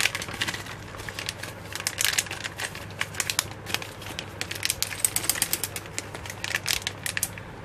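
Clear plastic packaging pouch crinkling and crackling in the hands as a solder-paste syringe is worked out of it, in quick irregular crackles.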